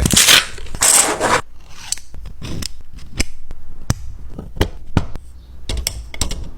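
Hard plastic parts being handled: a loud scrape during the first second and a half, then a scatter of sharp clicks and short scrapes.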